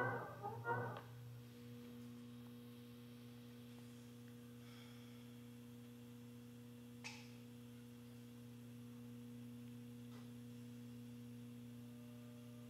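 A rhythmic electronic music pattern stops about a second in, leaving a faint, steady low electronic hum of a few held tones. There is a single short click around the middle.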